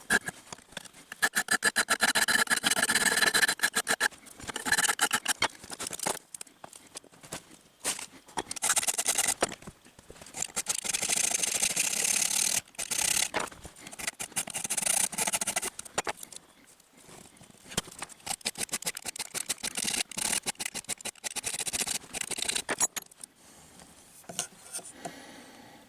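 Hand file rasping across the steel jaws of antique pliers in runs of quick back-and-forth strokes, with short pauses between runs. The filing is truing the jaws flat and straight so they close without a gap.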